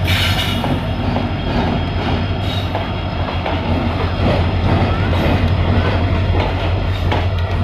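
WDP4-series diesel locomotive hauling passenger coaches past at low speed: a steady low engine drone, with the wheels clicking over rail joints near the end.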